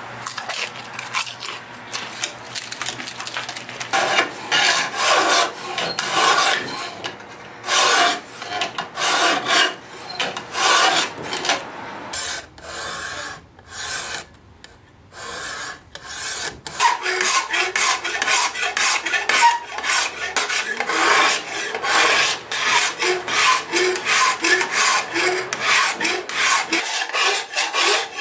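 Hand file scraping across a steel knife blade in repeated strokes, cutting the blade's bevel. The strokes begin a few seconds in at about one a second, pause briefly about halfway, then come faster, about two a second.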